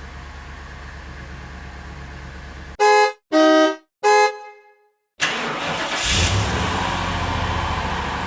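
A car engine running steadily, then a car horn honking three times: a short honk, a longer one, and a short one. After a brief silence, a car engine starts and runs steadily.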